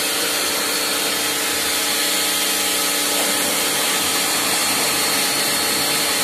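Kawasaki pressure washer running steadily: its motor hums under the hiss of the high-pressure water jet hitting a scooter's bodywork.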